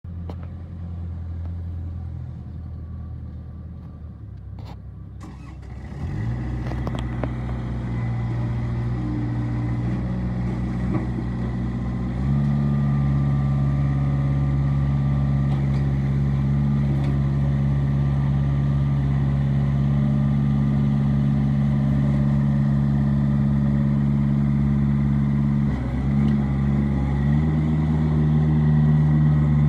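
Kubota L4200 tractor's diesel engine running at low idle, then throttled up in steps about six and twelve seconds in and running steadily at higher revs. The revs dip briefly near the end and rise again.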